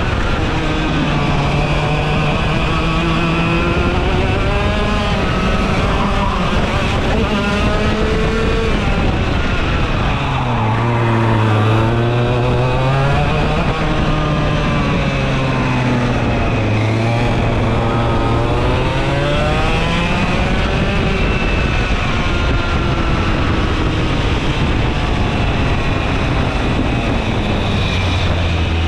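Vortex Rok GP 125cc two-stroke kart engine at racing speed, its revs repeatedly climbing and then falling away.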